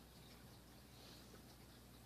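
Near silence: faint room tone with a low hum and hiss.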